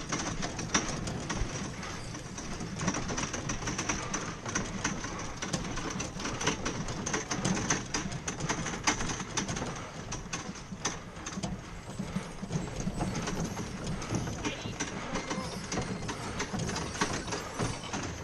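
Rolling equipment carts and percussion gear being moved, making a continuous clatter of many small knocks and rattles, with voices in the background.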